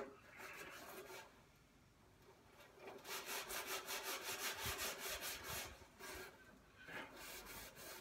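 Stainless steel scouring pad scrubbing burnt-on grease from the stainless steel edge of a barbecue lid, in rapid back-and-forth rasping strokes of about five a second. The strokes are loudest in the middle, with lighter scraping before and after.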